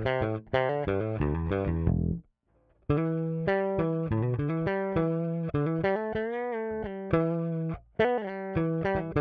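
Triple D Pony Bass, a handmade 30-inch short-scale electric bass with custom-wound pickups, played as a run of plucked notes. The notes stop briefly about two seconds in, one note is bent up and back down around the middle, and there is another short stop near the end.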